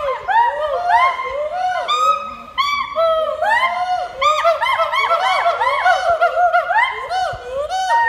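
Hoolock gibbons calling: a rapid, unbroken series of whooping notes that each rise and fall in pitch, several voices overlapping, thickest through the middle.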